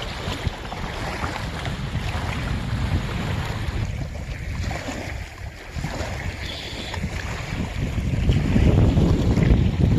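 Wind buffeting the microphone over small waves lapping at a rocky shore, the gusts growing stronger near the end.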